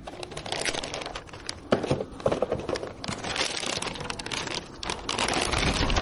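Crinkling and rustling with many small, irregular clicks and taps, like parts or wrapping being handled by hand.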